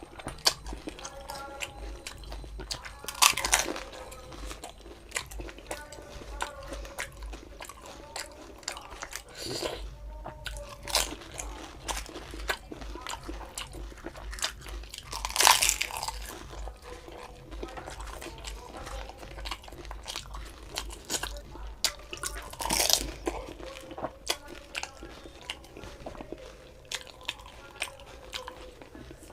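A person eating fuchka (panipuri): the crisp, hollow fried shells crunch loudly as they are bitten, four times about six seconds apart, with quieter wet chewing between the bites.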